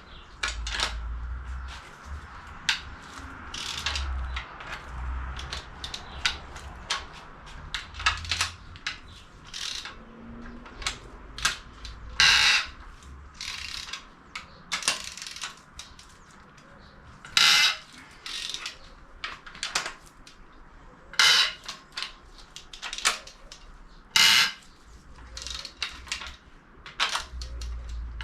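Irregular metallic clicks, clinks and knocks of hand tools and parts being handled during an engine teardown. Several louder, short rasping bursts about half a second long come at intervals, typical of a ratchet wrench being worked.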